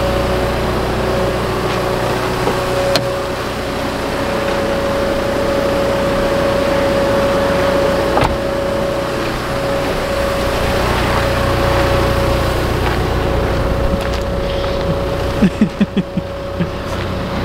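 Backhoe loader's diesel engine running at a steady idle, with a steady whine over it. Near the end comes a quick run of five or six knocks.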